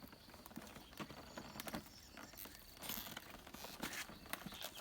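Light clicks, taps and rustling of small plastic toy pieces and their packaging being handled during an unboxing, a handful of short knocks scattered through the quiet.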